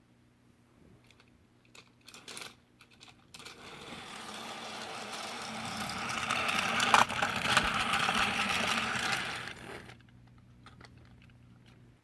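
A train approaching and passing: a rattling clatter that builds over several seconds, with a sharp knock about seven seconds in, then drops off suddenly about ten seconds in.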